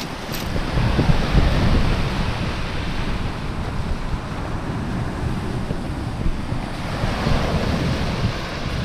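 Waves breaking on the beach in a steady wash of surf, with wind blowing across the microphone and adding a low rumble.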